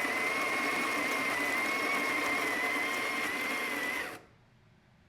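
Electric coffee grinder running steadily with a high whine as it grinds beans fine, then switching off and stopping about four seconds in.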